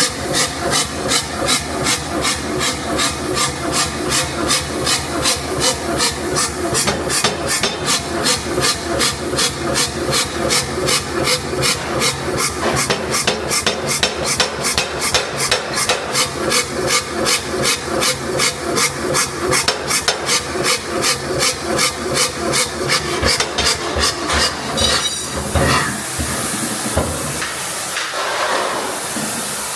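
Alldays & Onions power hammer running and striking hot steel in a fast, even beat of about three blows a second, flattening the end of an anti-roll bar, over a steady machine hum. The blows stop about 25 seconds in, leaving a steady hiss.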